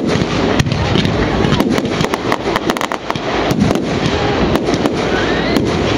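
Fireworks going off in a dense, continuous barrage of crackling pops and bangs, with a faint rising whistle near the end.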